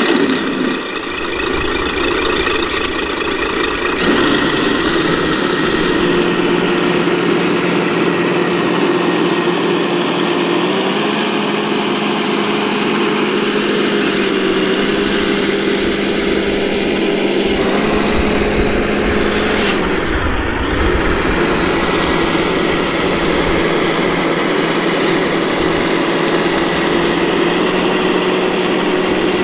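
Simulated diesel truck engine from the sound module of an 8x8 RC military truck, running steadily at a low idle-like pitch that steps up a little a few times in the middle, as if revving under throttle, then settles back.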